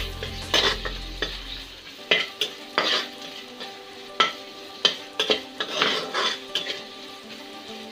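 Spatula stirring and scraping chopped onions, garlic and ginger as they fry in hot oil in a kadhai: a steady sizzle with irregular scraping strokes against the pan. The onions are being sautéed until soft.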